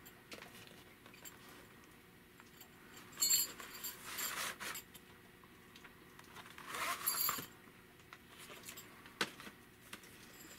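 Handling noise of a VHS tape: the plastic cassette sliding in and out of its cardboard sleeve. There are a few short rustling, scraping bursts, the loudest about seven seconds in, and a single click near nine seconds.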